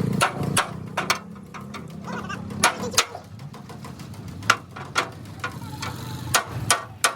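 Irregular sharp knocks, about a dozen at uneven intervals, over a steady low machine hum.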